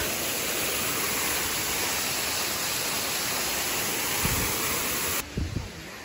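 Waterfall cascading over a rock slope: a steady rush of water, with a couple of low bumps near the end, cutting off abruptly about five seconds in.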